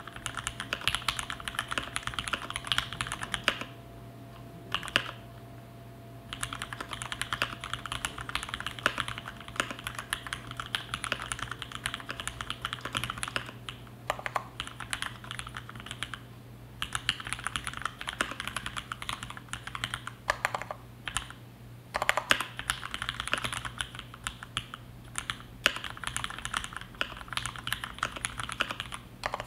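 Typing on a mechanical keyboard with linear Cherry MX Black switches (62 g springs) under GMK Dolch keycaps: fast runs of keystrokes, broken by short pauses three times.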